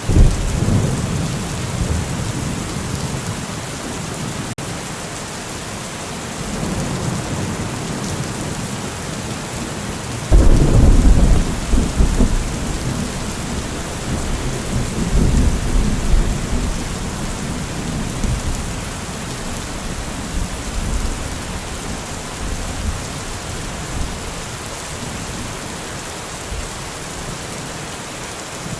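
Steady heavy rain hissing, with thunder rumbling: one roll right at the start and a louder, sudden clap about ten seconds in that rumbles away over several seconds.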